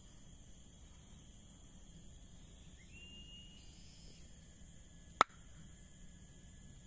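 Faint steady high-pitched drone of insects from the pond-side vegetation, with one short rising call about three seconds in. About five seconds in there is a single sharp click, the loudest sound.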